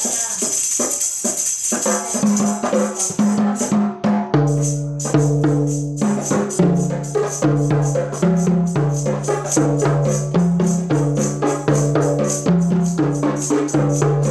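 Rebana frame drums and a jingling tambourine played in a steady rhythm. About four seconds in, music with a steady low bass line that steps between two notes joins the percussion.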